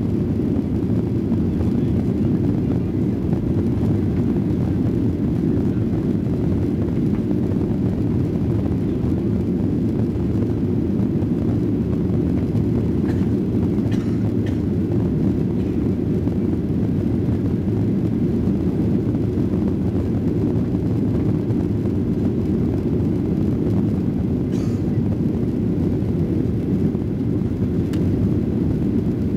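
Steady low roar of a Ryanair Boeing 737-800's jet engines and rushing air, heard inside the passenger cabin as the airliner climbs after take-off.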